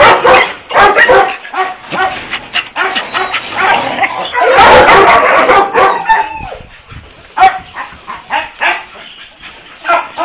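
Many kennelled dogs barking at once, a dense overlapping din at the start and again about four to six seconds in, thinning to a few separate barks after that.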